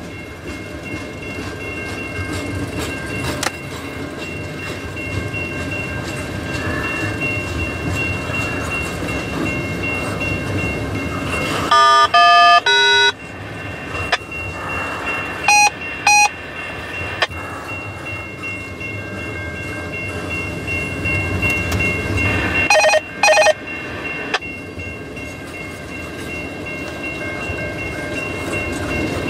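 CN double-stack intermodal container train rolling past, its wheels on the rails giving a steady rumble with a thin, steady high ringing tone over it. A few short, loud horn-like tone blasts cut in near the middle, two more follow shortly after, and another pair comes later.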